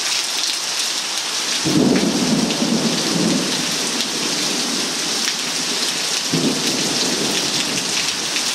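Heavy rain pouring steadily in a thunderstorm, with a rumble of thunder about two seconds in and another about six seconds in.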